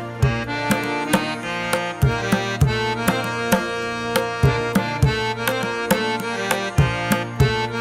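Background music: repeated drum strikes over sustained melodic tones and a steady low drone.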